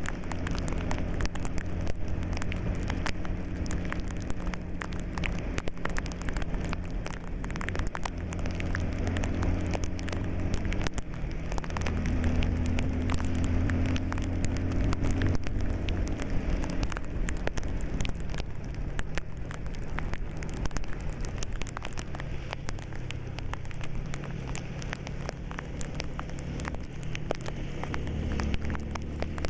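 A vehicle's engine running low while driving, its pitch shifting a few times, under a dense crackle of raindrops striking the vehicle and the hiss of tyres on a wet road.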